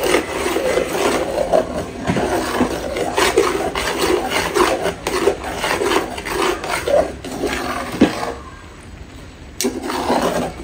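Par-boiled basmati rice being mixed into masala in a large aluminium pot with the back of a metal ladle: a continuous scraping, rustling sound of rice and ladle against the pot with small clicks. It pauses briefly about eight seconds in, then a click and the scraping starts again.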